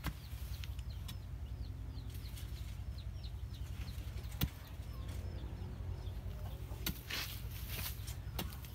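Metal digging bar jabbed into dry dirt: a few sharp knocks and a rasping scrape about seven seconds in. Chickens cluck, with quick repeated high chirps through the first half.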